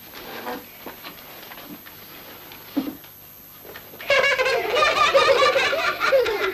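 Faint shuffling and murmur, then about four seconds in a sudden loud outburst of many children laughing and shouting together.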